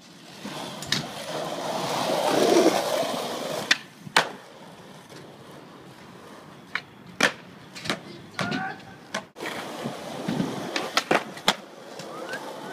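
Skateboard wheels rolling on concrete, swelling as a board passes close about two and a half seconds in and then fading. After that come sharp wooden clacks of the board's tail popping and the deck landing on the ground, about a dozen scattered through the rest.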